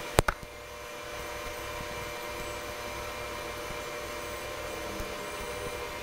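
Steady machine hum with faint steady tones, like a fan or ventilation running, and two sharp clicks a fraction of a second apart just after the start.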